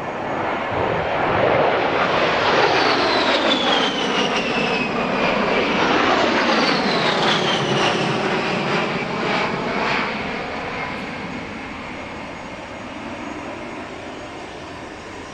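XP-82 Twin Mustang's piston engines in a low flyby. The sound swells, holds loud, then fades, and the engine pitch drops twice as it passes, about 3 and 6.5 seconds in.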